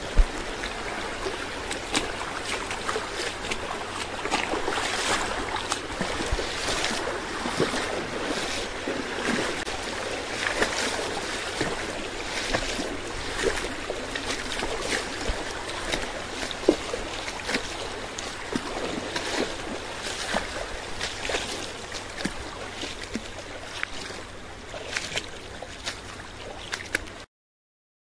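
Shallow rocky stream running and burbling over stones, with scattered splashes of people wading barefoot through the water. It cuts off abruptly just before the end.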